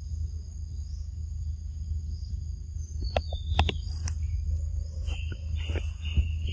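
Outdoor forest ambience: a steady high insect drone over a low rumble, with a few sharp clicks and snaps from about halfway through.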